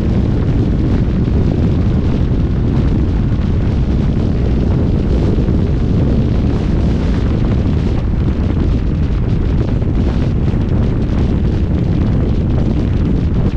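Loud, steady low rumble of wind buffeting the microphone.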